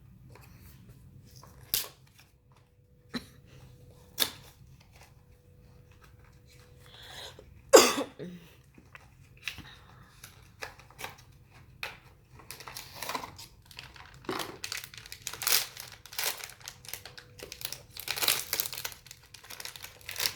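Blind-box toy packaging being handled and opened: a few sharp clicks and taps, one louder knock about eight seconds in, then dense crinkling and tearing of wrapping from about twelve seconds in.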